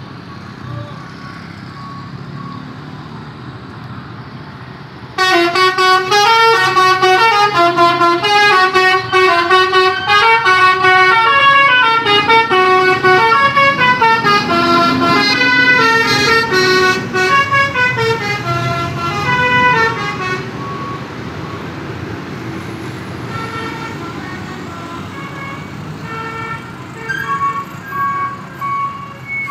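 Indonesian tour buses' multi-tone 'telolet' air horns playing a fast melody of quickly changing notes. The horns start abruptly about five seconds in over a low diesel engine rumble, stay loud until about twenty seconds in, and then give fainter, broken-up notes near the end.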